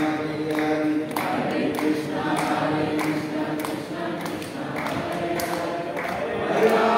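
A congregation singing a devotional chant together in kirtan, with a sharp beat keeping time a little under twice a second.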